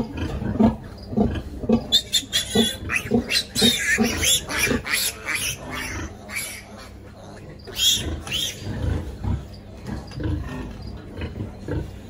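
Pigs in a farrowing house: a sow grunts about twice a second, and piglets squeal loudly from about two seconds in and again briefly near eight seconds.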